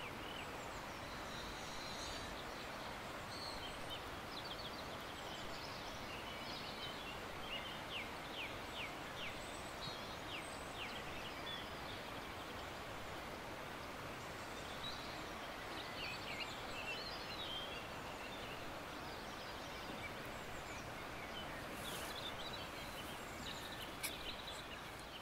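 Forest ambience: a steady rushing background noise with small birds chirping and calling over it, a quick run of short calls a few seconds in. A few sharp clicks near the end.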